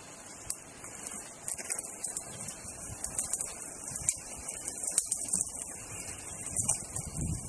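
Elephant feeding in a tree: leaves rustling and twigs snapping, with sharp cracks about half a second in, at about four seconds and at about five seconds, over a steady high hiss.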